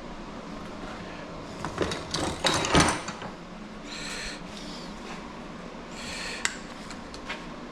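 Small electronic parts and wire being handled and sorted: a cluster of clicks and knocks about two to three seconds in, then two short scraping, rustling sounds with a few sharp clicks.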